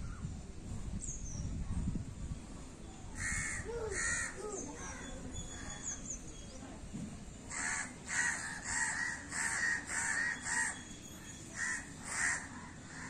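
A crow cawing: a few caws about three seconds in, then a steady run of repeated caws, about two a second, through the second half.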